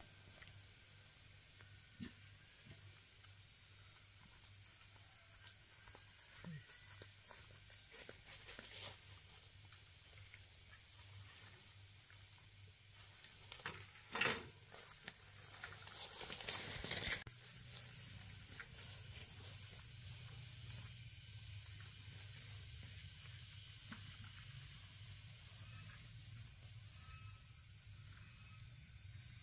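Insects chirping outdoors, faint: a steady high buzz with a short chirp repeating about one and a half times a second through the first half. There are a few light knocks around the middle.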